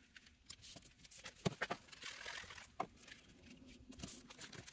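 Faint handling of cardstock: a card panel is being pressed down by hand onto a card base, with a brief paper rustle and a few soft taps.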